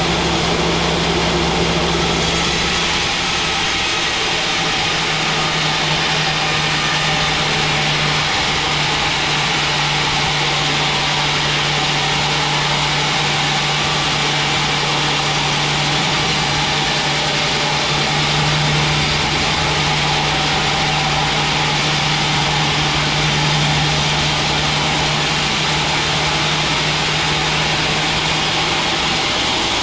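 Large band sawmill running steadily, its blade ripping lengthwise through a thick mahogany log, over a steady motor hum.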